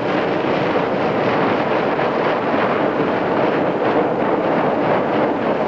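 Steady, loud grinding and rushing of first-year sea ice breaking and scraping along a container ship's steel hull as the ship pushes through it.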